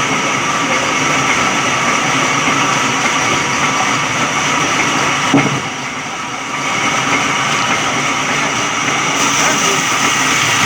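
Electric sawmill running steadily with a high machine whine, a single knock about five seconds in and a short dip in level just after.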